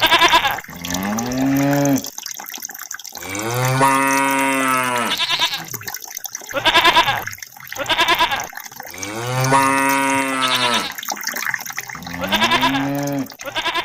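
Farm animal calls, long moo-like calls alternating with shorter rising bleat-like calls, repeating in a regular pattern.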